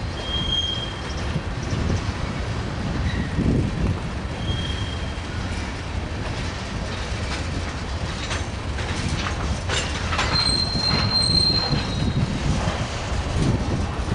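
Freight train rolling past: a steady rumble with the wheels clicking over rail joints, and short high-pitched wheel squeals, the longest lasting about a second starting about ten seconds in.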